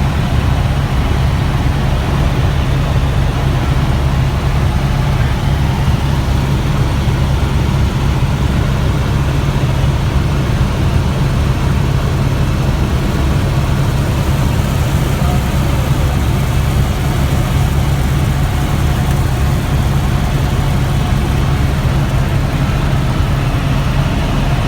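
Steady, loud low drone of a running vehicle engine, unchanging throughout.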